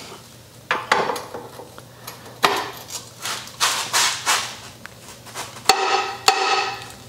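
Bottom bracket tool and long breaker bar clicking and knocking against the frame's bottom bracket while it is strained against a stuck bottom bracket that has not yet broken free. Near the end a held tone lasts about a second.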